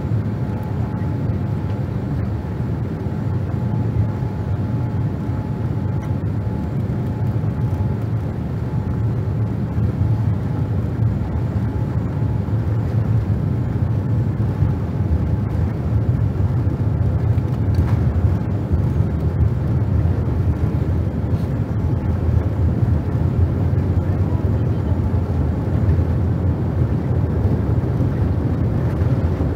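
Boeing 787-8 airliner cabin with the jet engines running as the aircraft taxis before takeoff: a steady low rumble that grows a little louder from about ten seconds in.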